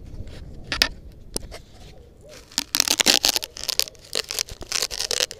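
Handling noise from a helmet-mounted camera being adjusted: scraping, rubbing and clicking right on the microphone, a few clicks at first, then dense scratching from about halfway in.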